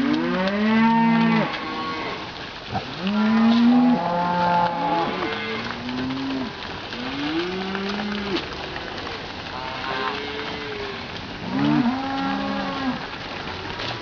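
A herd of beef cattle mooing on the move, one long call after another, about eight or nine moos, some of them overlapping from different animals.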